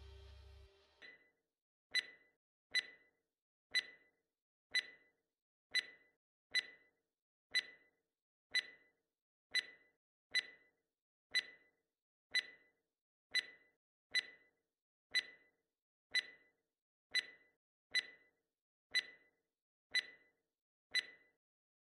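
Quiz countdown timer's ticking sound effect, one sharp tick about every second. It marks the seconds running out to answer the question. The tail of intro music fades out at the very start.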